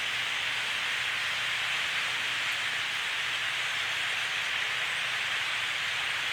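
Massed chorus of a huge flock of grackles in the trees, thousands of calls blending into one steady, even hiss-like din.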